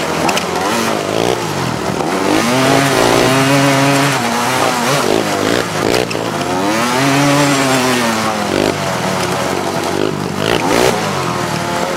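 Four-wheeler (ATV) engine revving up and easing off during a ride, its pitch climbing and falling back about three times.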